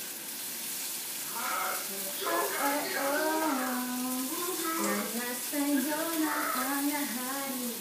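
A woman singing a slow melody with long held notes, starting about a second and a half in, over the steady sizzle of food frying in a pan on a gas stove.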